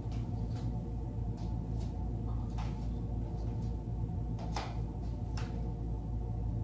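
A low ambient music drone of sustained, layered tones, with a few faint clicks over it; the strongest click comes about four and a half seconds in.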